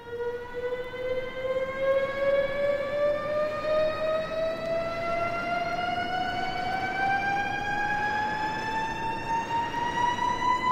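A single siren-like tone rising slowly and steadily in pitch, climbing about an octave, with a hiss beneath it.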